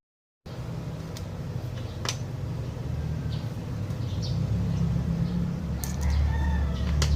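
Low steady rumble with a few sharp clicks, and a rooster crowing briefly near the end.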